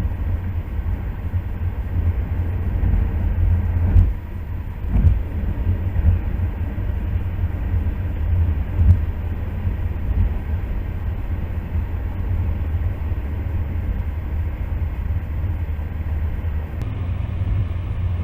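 Steady low rumble of a car driving along a road, tyres and engine, with a few brief thumps about four, five and nine seconds in.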